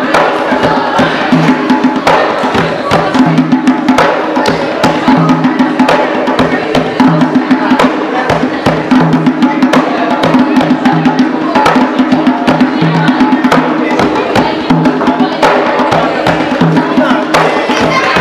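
Loud music with a steady beat: drums and sharp, knocking percussion over a repeating low bass line.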